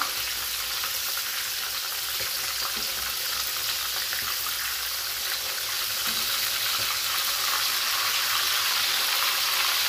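Flour-dusted sardines sizzling and crackling in hot oil in a frying pan as they are turned over with forks. The frying gets a little louder about six seconds in.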